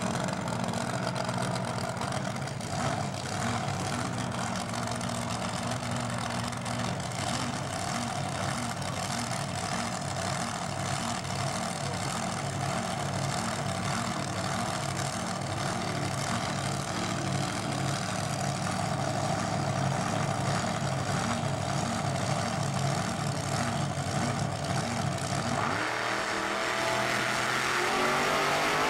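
Chevy-powered dragster's V8 idling at the start line with an uneven, pulsing beat. About 26 seconds in it launches, and the engine note climbs sharply as the car accelerates away down the strip.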